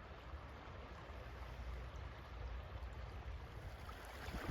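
River stream running over its bed: a faint, steady wash of flowing water.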